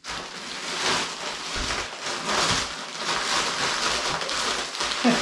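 A steady rushing hiss that starts abruptly and holds at an even level, with no speech over it.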